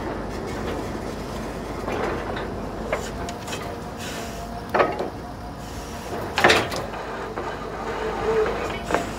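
Truck-mounted borewell drilling rig running steadily, its engine and machinery making a constant drone, with about four sharp clanks at the drill head, the loudest a little past the middle.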